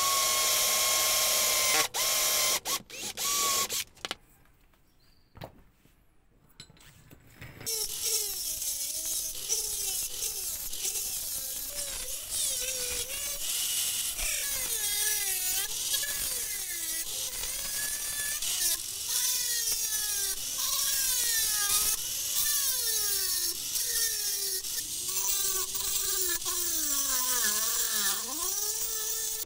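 An electric drill bores through a thin metal strip for about two seconds, followed by a few short bursts. After a quiet pause, a small handheld rotary tool with a cut-off disc starts about eight seconds in and cuts a slot in the metal strip. Its whine dips and rises in pitch again and again as the disc bites.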